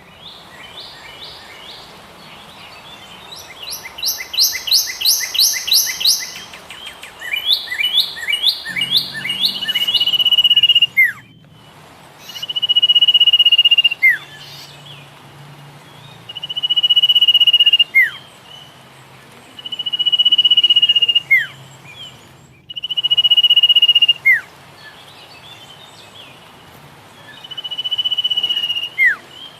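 Songbirds singing close by. At first come quick runs of high chirps, several a second. Then one bird repeats the same phrase about every three and a half seconds, a held trilled note ending in a quick falling note. The sound cuts out for an instant twice.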